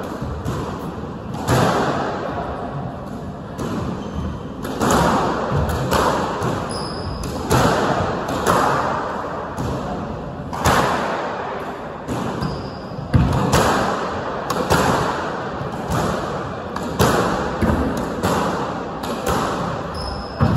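A squash ball being hit back and forth in a rally, racket and wall strikes about once a second, each echoing around the hard-walled court.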